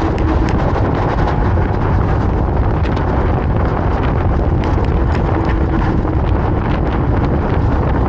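Wind buffeting the microphone of a moving electric scooter: a loud, steady low rumble with small clicks and rattles scattered throughout.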